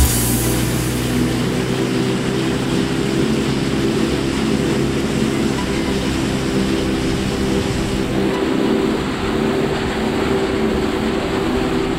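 STORM F18 four-stroke outboard motor running steadily at cruising speed while being run in, with a hiss of wind and water over it.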